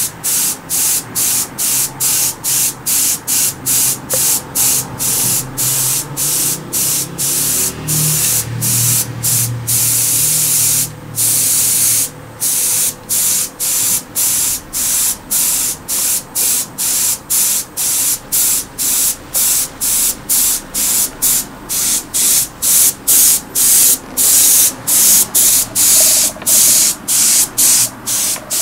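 Airbrush hissing in short sprays about twice a second as the trigger is pressed and let go, with a few longer sprays now and then.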